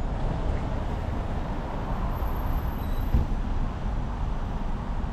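Steady road traffic, cars and buses passing on a busy avenue, heard as an even rumble with no single vehicle standing out.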